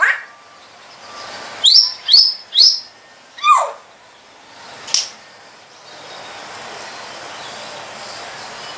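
African grey parrot calling: three quick rising whistles about two seconds in, then a falling call and a short sharp chirp, followed by a steady background hiss.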